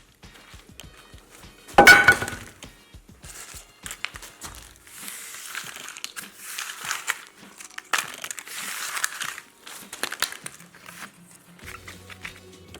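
A baseball bat smashing crunchy objects: one loud crack about two seconds in, then scattered crunching and crackling with several short, hissy bursts.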